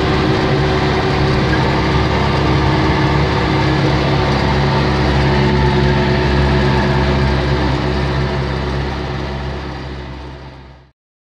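David Brown 1290 tractor's diesel engine running steadily under way, heard from inside the cab. The sound fades out over the last few seconds and then stops.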